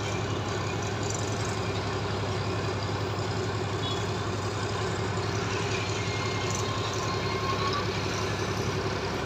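Heavy diesel engine of a crane running steadily with a low hum while lifting a concrete girder.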